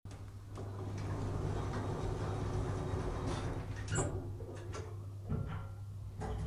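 Elevator car in motion: a steady low hum and rumble, with a few light clicks and a short high blip about four seconds in.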